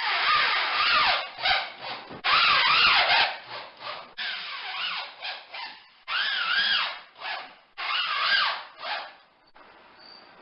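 Power drill driving drywall screws through metal drywall corner bead into the studs. The motor runs in about six short bursts, its pitch rising and falling with each trigger pull as the screws sink the bead's flange. It stops about nine seconds in.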